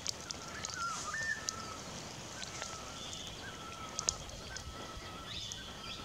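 Forest ambience with birds calling: scattered short high chirps and ticks over a thin, steady whistle-like tone that breaks off and resumes, with one rising note about a second in.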